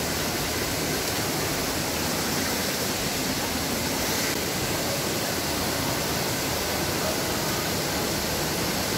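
Rushing river water in a canyon: a steady, even roar of water with no let-up.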